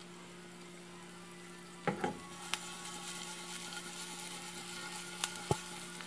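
Diced garlic sizzling in hot oil from canned tuna in a frying pan. About two seconds in, a utensil starts stirring it, with a few sharp knocks and scrapes against the pan, and the sizzle grows louder.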